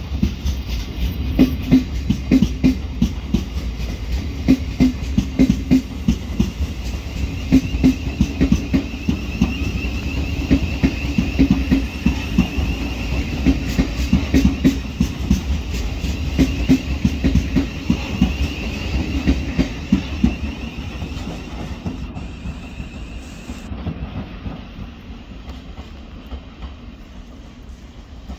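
Thameslink electric multiple unit's wheels clattering over pointwork and rail joints in quick irregular clicks. A high-pitched wheel squeal runs from about eight seconds in to about twenty, and then the clatter fades as the train draws away.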